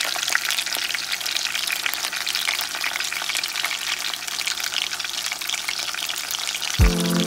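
Boneless chuck roast searing in a stainless steel pot: a steady sizzle full of fine spitting pops. Music comes in near the end.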